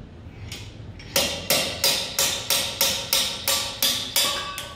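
Slide hammer knocking the forward gear bearing race out of a Volvo Penta SX sterndrive lower unit housing: about ten quick hammer blows, roughly three a second, each with a short metallic ring, starting about a second in.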